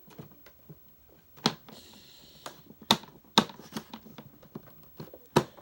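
Hard plastic parts of a Hoover upright vacuum cleaner being handled and pushed together by hand: a run of sharp clicks and knocks, four of them loud, with a brief scraping hiss near the start, as a part is worked into its housing without seating.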